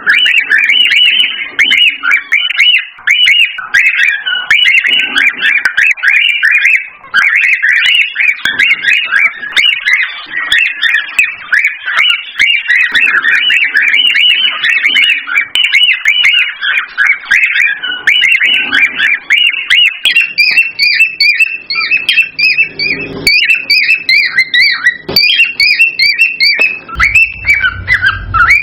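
Cockatiels chirping and warbling: a dense, unbroken run of rapid whistled chirps. About twenty seconds in, a second, higher series of notes joins, and a low rumble comes in near the end.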